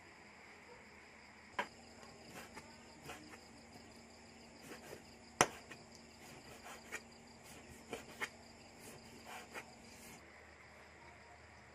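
Knife cutting raw pork on a wooden chopping board: irregular knocks of the blade against the board, starting about a second and a half in and stopping about ten seconds in, the loudest a little past the middle. A steady high hum runs under the knocks.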